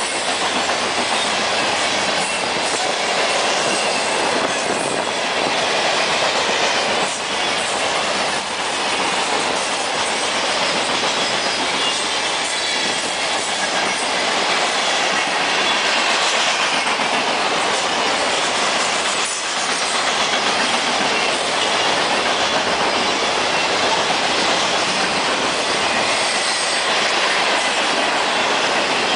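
Steel-wheeled coal hopper cars of a freight train rolling past close by: a steady, loud rumble and rattle of wheels on rail, with a few clicks over rail joints.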